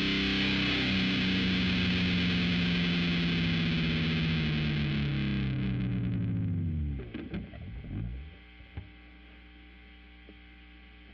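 Heavily distorted electric guitar, a Jackson DKMG with EMG pickups through a Line 6 Spider Valve amp, letting a final chord ring out; its pitch sinks and dives away to nothing about seven seconds in, with a few string and pick clicks. After that only a faint steady amplifier hum and hiss remains.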